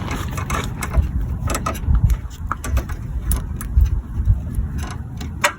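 Wind rumbling on the microphone, with scattered sharp clicks and knocks of hand tools on car parts during work on an AC line.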